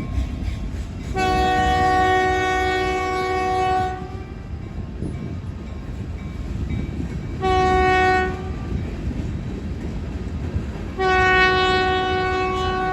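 Diesel locomotive air horn sounding a multi-note chord in three blasts: a long one, a short one, then another long one that is still sounding at the end, over the steady rumble of the passing freight train.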